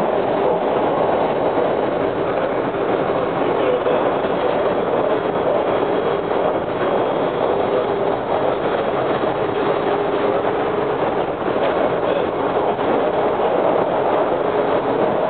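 Interior running noise of a WMATA Breda 4000-series metro railcar under way: a steady, even rumble of wheels on rail with faint steady whining tones.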